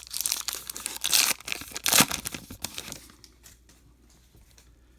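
Wrapper of a Topps Archives baseball card pack being torn open and crinkled, a dense crackle that is loudest about one and two seconds in and dies away after about three seconds.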